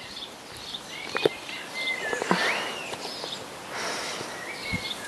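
Outdoor garden ambience with several faint, thin, high whistling calls, one sliding upward near the middle, and a couple of light knocks.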